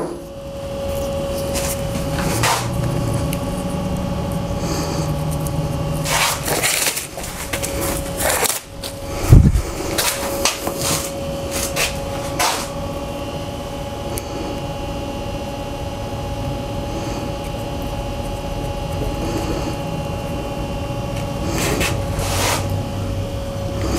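A steady mechanical hum from a running fan or motor, with scattered clicks and knocks of small metal and plastic parts being handled at a motorcycle fuel tank, and one louder thump about nine seconds in.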